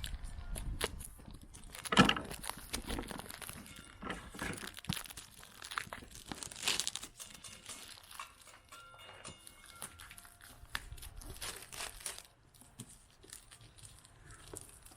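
Packaging being handled: plastic wrap and box material crinkling and rustling with irregular small clicks, and one sharp knock about two seconds in.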